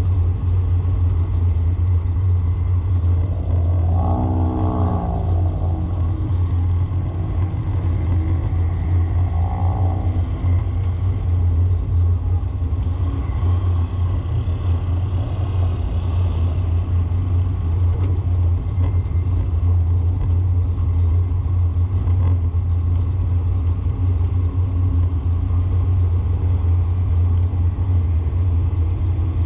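Steady low rumble of a vehicle driving through city traffic, heard from on board. A short pitched sound that bends up and down passes about four seconds in, and a fainter one near ten seconds.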